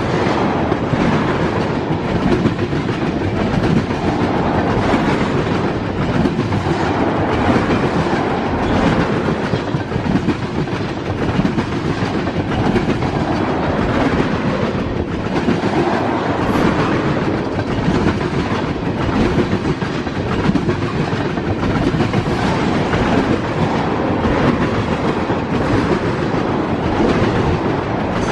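A train rolling past steadily, its steel wheels clicking over the rail joints.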